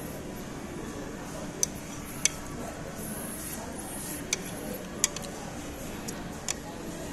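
Chopsticks clicking against a ceramic plate, five or six sharp separate taps while scraping up the last noodles, over a steady murmur of background voices.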